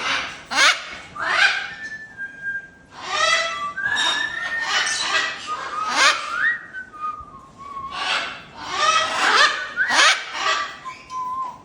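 Blue-and-gold macaws squawking: about a dozen harsh, rasping screeches that sweep up and down in pitch, with short clear whistled notes in between.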